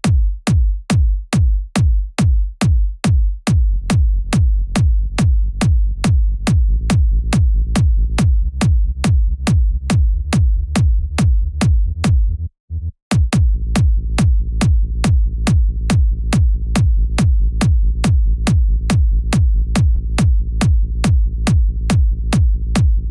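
Electronic trance kick drum playing a steady four-on-the-floor beat, about two hits a second. From about four seconds in, a sustained sub bass fills the gaps between the hits. Playback stops for a moment about halfway through and then resumes, as the 30 Hz low cut on the kick and sub bus is auditioned.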